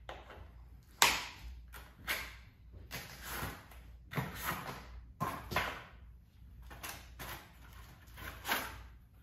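Foam packing sleeves and plastic wrap rustling and scraping in a series of short bursts as they are pulled off a bike frame, with a sharp click about a second in.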